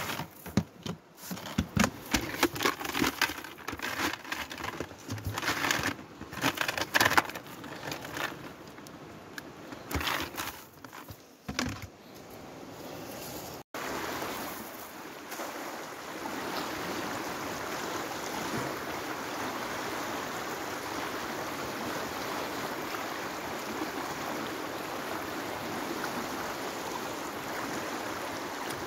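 Cast net being handled over a plastic bucket, its lead sinkers clicking and knocking together in quick, uneven bursts. About halfway through this gives way abruptly to the steady rush of a fast-flowing river.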